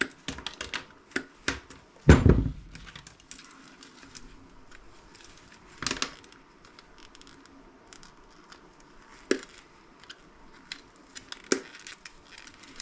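Small parts and wire of a bug zapper being handled and pulled apart: a quick string of sharp clicks, a heavy clunk about two seconds in, then scattered clicks and taps.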